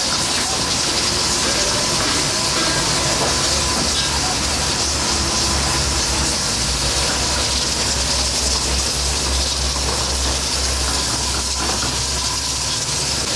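Steady loud hiss of gas burners firing under woks of simmering mutton karahi, with a low hum beneath.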